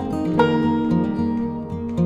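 Background music: plucked acoustic guitar.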